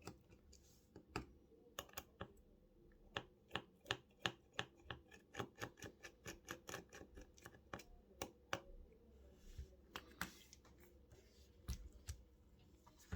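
Precision screwdriver working tiny Phillips screws out of a phone's inner frame: a long run of faint, quick clicks and ticks.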